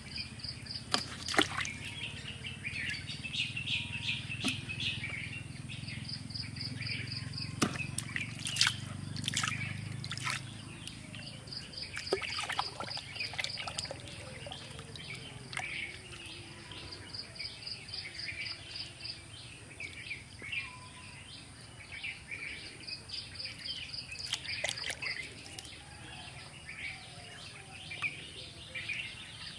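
Birds chirping and calling, with a fast pulsed trill that comes and goes. Under them, faint splashing and trickling of a hand working in a water-filled mud hole.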